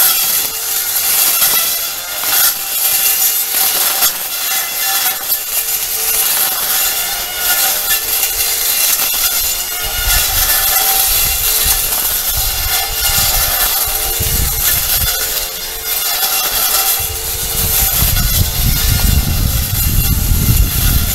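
Makita battery brush cutter with a Tsumura eight-tooth blade running and cutting weeds, a steady motor whine over a high hiss. A low rumble joins about halfway through.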